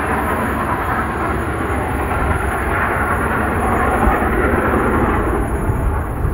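A train rolling past with a steady, loud rumble of wheels on the rails.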